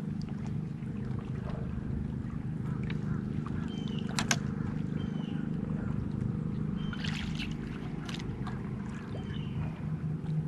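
Steady low drone of a boat motor across the lake water, with a few short high chirps and a single sharp click about four seconds in.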